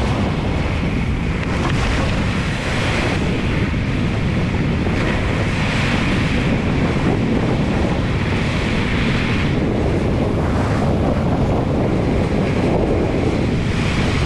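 Wind and road noise from a moving car, a loud steady rush with wind buffeting the microphone.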